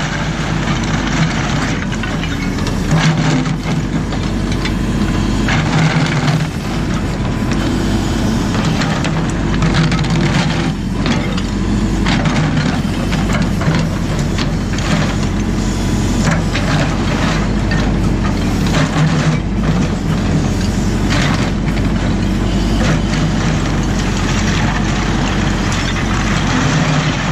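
JCB 4CX backhoe loader's diesel engine running and revving up and down under load, with repeated knocks and cracks from the machine working material.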